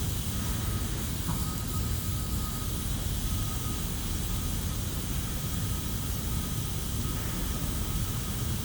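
Steady low rumble of distant industrial and air-traffic noise with an even hiss over it, and a faint high tone that comes and goes.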